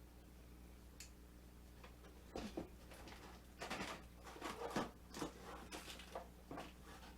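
Handling noise as welding tools are taken out of a bag: a series of irregular rustles and light clicks that starts about two seconds in and ends shortly before the finish.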